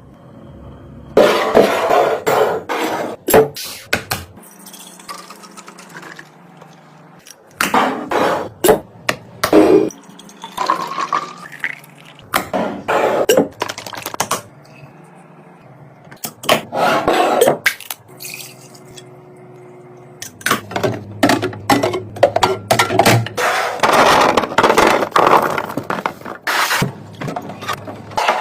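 Kitchen containers and food items being handled and set into a fridge: repeated bursts of clattering, knocks and clicks, separated by quieter pauses.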